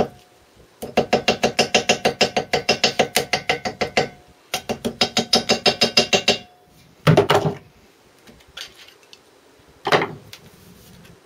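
Ball-pein hammer tapping rapidly on gasket paper laid over the Villiers WX-11's cylinder, cutting the gasket out against the metal edges of the port. The taps come in two quick runs of about eight a second, followed by two short scuffs.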